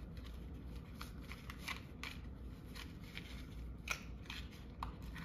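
Soft rustling and light clicks from a cloth drawstring pouch being loosened by hand and a small cardboard box being drawn out of it, with the sharpest click nearly four seconds in.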